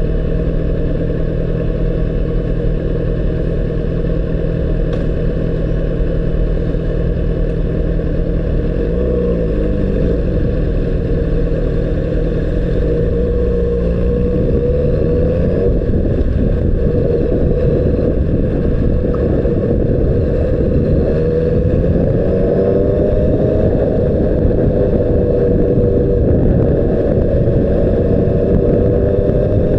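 2006 Honda CBR600RR's inline-four engine running, steady at first, its pitch shifting about ten seconds in and then climbing slowly near the end, under a heavy low wind rumble on the microphone.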